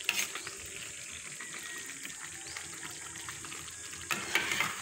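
Pork afritada in tomato sauce simmering with a steady bubbling crackle in a frying pan, stirred with a slotted spatula; a louder burst of stirring and scraping comes near the end.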